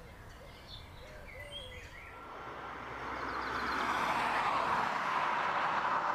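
Birds chirping, then a car approaching and passing along a road: its noise swells steadily over several seconds and starts to fall away at the end.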